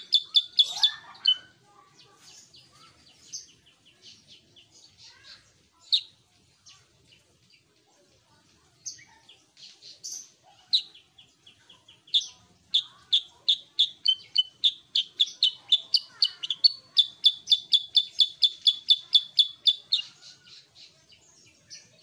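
Black-headed bulbul (kutilang sutra) singing: fast runs of sharp chirps, about five a second. The runs are loud at the start and again through a long run in the second half, with softer scattered notes between.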